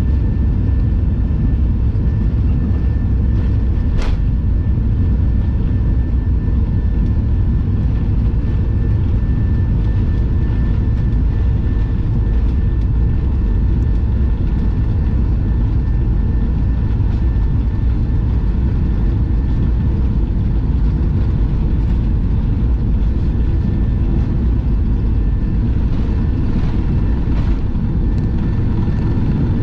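Steady low rumble of an airliner's jet engines and rushing air, heard from inside the passenger cabin in flight, with a faint steady high tone throughout and a single click about four seconds in.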